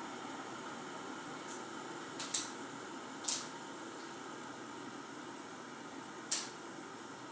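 Kettle boiling: a steady hiss and bubbling, broken by four short, sharp hisses; the loudest comes about two seconds in.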